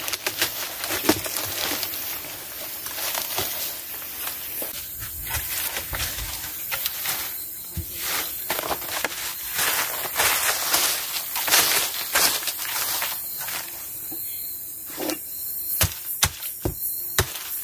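Rustling and scraping of cardboard and dry leaf litter being handled, with scattered sharp clicks and taps that come thickest near the end. A steady, high insect chirring runs underneath.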